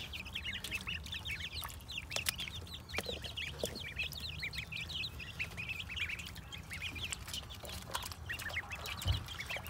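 A flock of five-to-six-week-old chicks and ducklings peeping continuously, many short high chirps overlapping. A brief low bump comes near the end.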